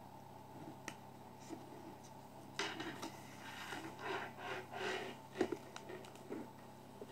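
Folded paper pieces rustling and rubbing as they are handled, in a run of scratchy rustles from about two and a half seconds in, with a sharp tap about five and a half seconds in and a few small clicks earlier.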